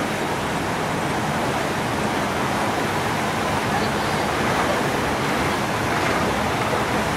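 Steady rushing and churning of a car ferry's propeller wash in the wake astern, with a low rumble underneath.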